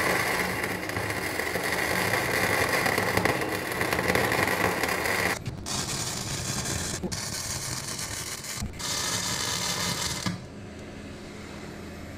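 Electric arc welding on steel plate: the arc hisses and crackles steadily, stops briefly a few times about halfway through, and ends about ten seconds in, leaving a low steady hum.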